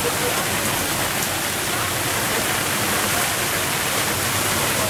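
Torrential, wind-driven rain from a violent rainstorm pouring down steadily on open water and on a boat, heard from inside the boat's cabin.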